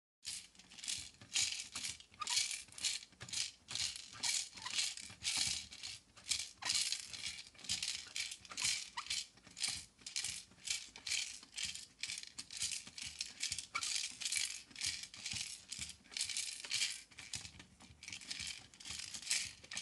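Rhythmic rattling, about two to three shakes a second, starting and stopping abruptly.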